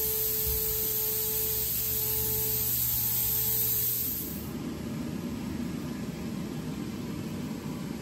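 Spray equipment hissing steadily, with a faint steady hum at first. About four seconds in the hiss turns lower and duller.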